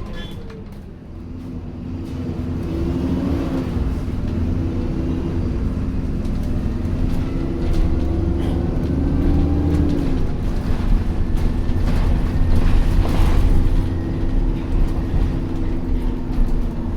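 Alexander Dennis Enviro400 Trident double-decker bus running, heard from on board: a low rumble with a whine that rises in pitch as it picks up speed, dropping back about ten seconds in, and getting louder from about a second in.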